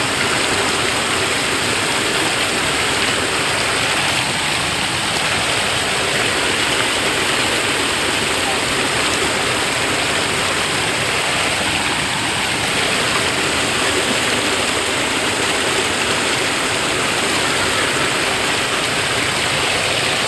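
Mountain stream water rushing and splashing over rocks, a steady, loud rush.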